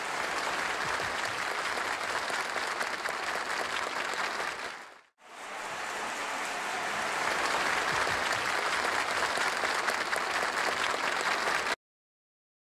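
Audience applauding: dense, steady clapping that fades out about five seconds in, swells back up, and cuts off abruptly near the end.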